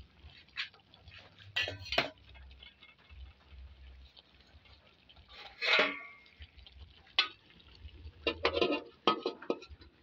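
A cooking utensil knocking and scraping against a wok while stirring a simmering eggplant and chili dish, in scattered clinks. Near the end comes a quick run of metal clanks.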